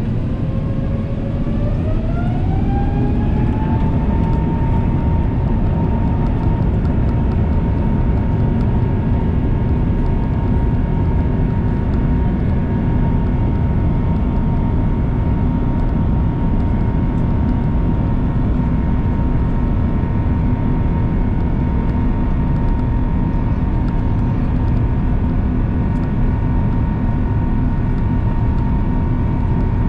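Airbus A350-1000's Rolls-Royce Trent XWB engines heard from inside the cabin: a whine that rises over the first few seconds and then holds steady over a loud, continuous low rumble, the engines spooling up to takeoff thrust.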